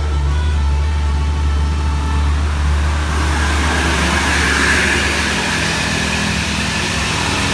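A bus's diesel engine rumbling close by. About three seconds in, a rising rush of tyre and air noise builds as traffic passes, then eases off.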